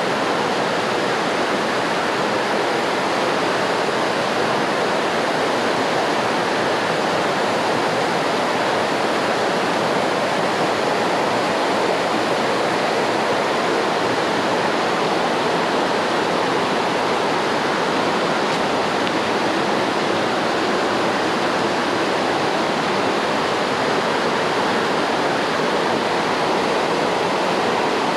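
Water rushing steadily, an even unbroken hiss and splash like a small waterfall.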